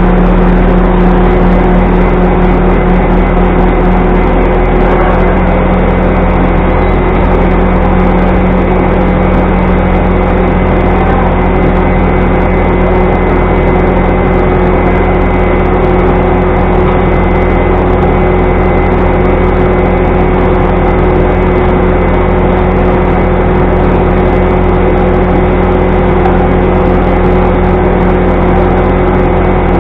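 A loud, steady mechanical drone with a constant hum, like a machine running unattended in the shop.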